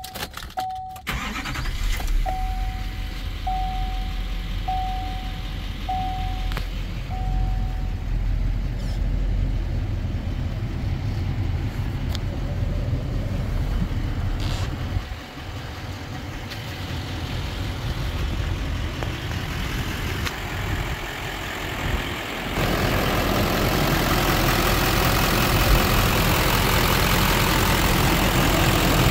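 Chevrolet Silverado pickup's V8 engine starting about a second in, then idling steadily. A warning chime sounds about once a second for several seconds after the start. Near the end the idle is heard louder and brighter, from the open engine bay.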